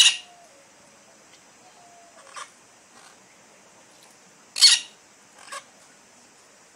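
Green parakeets giving short, harsh screeches: two loud ones, right at the start and about four and a half seconds in, and two fainter ones between and after.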